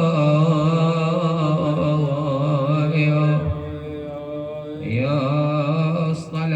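A male radood chanting a Shia elegy (latmiya) in Arabic, drawing out long, wavering held notes. The chant dips quieter about three and a half seconds in, then a new held phrase starts about five seconds in.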